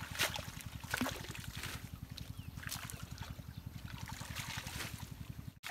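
Water splashing and dripping in short bursts as a mesh fishing net is worked through a weedy pond, over a steady, rapid low chugging of an engine. The sound drops out briefly near the end.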